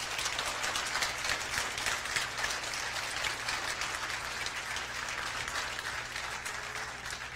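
A seated audience applauding: many hands clapping in a dense, steady patter that eases off slightly near the end.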